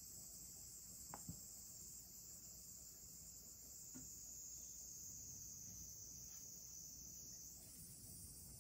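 Near silence: room tone with a faint, steady high-pitched chirring of insects such as crickets, and a few faint ticks.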